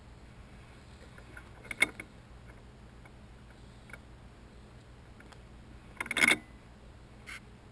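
Small mechanical parts being handled: a short clatter of clicks about two seconds in, then a longer, louder clicking rattle about six seconds in, with a few faint single ticks between.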